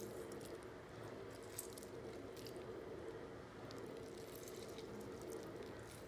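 Faint wet squishing and soft ticks of food being handled in a kitchen, over a steady low hum.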